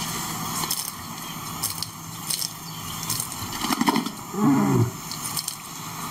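Male lion giving a short, low groan about two-thirds of the way in, over a crackling background with scattered clicks.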